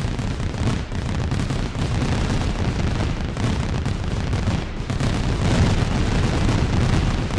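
Fireworks going off in a long, unbroken burst: a dense run of crackling bangs over a low rumble.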